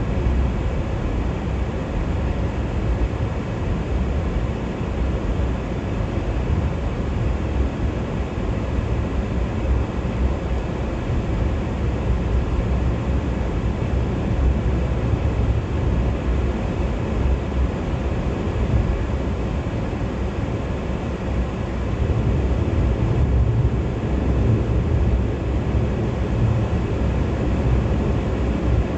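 Steady drone of a car at highway speed heard from inside the cabin: a low rumble of tyres on the road and engine, with no breaks or sudden events.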